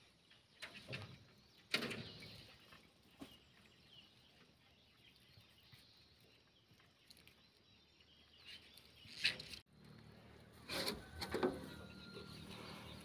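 Quiet outdoor background broken by a few sharp knocks, with the loudest one about two seconds in. Near the end, a burst of rustling and clatter as bankside bushes are pushed about from a small boat.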